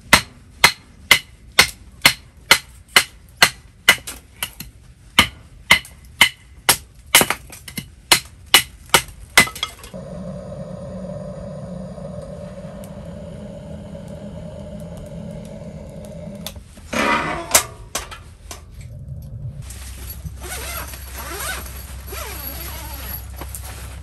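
Firewood being split into kindling with sharp chopping strikes, about two a second, for the first ten seconds. The chopping then stops, leaving a steady low noise with a short clatter about 17 seconds in and a steady hiss near the end.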